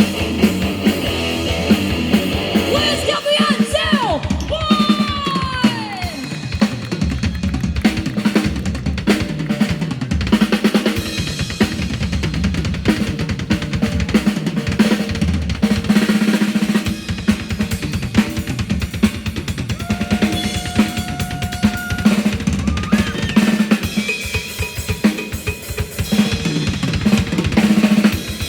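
A child playing a fast drum solo on a drum kit: rapid snare hits and rolls over bass-drum kicks, with rimshots.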